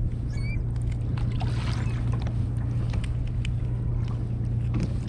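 Steady low rumble of wind and sea on an open kayak, with scattered light clicks and taps as a Dungeness crab is handled against a plastic crab gauge.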